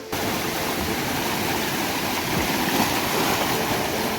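Steady rush of flowing river water, starting suddenly right at the beginning.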